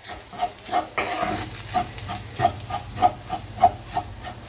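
Onion and spice masala being stirred in a frying pan: rhythmic scrapes of the stirring utensil against the pan, about three a second, over a faint sizzle of frying.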